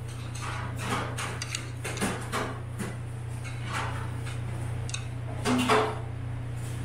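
Metal chopsticks and dishes clinking in scattered light clatters over a steady low hum. A brief louder sound comes about five and a half seconds in.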